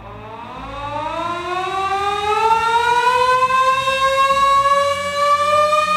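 Motor-driven warning siren winding up, its wail rising steadily in pitch and loudness and levelling off near the end as it reaches full speed.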